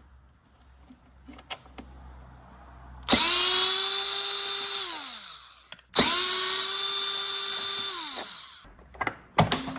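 Cordless drill-driver backing out motorcycle body panel screws: two runs of the motor, each about two and a half seconds, holding a steady whine and then winding down in pitch as the trigger is let go. A few light clicks come before and after.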